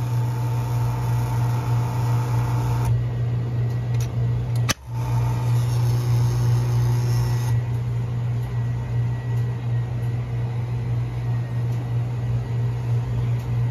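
A steady low machine hum, with a brief dropout about five seconds in.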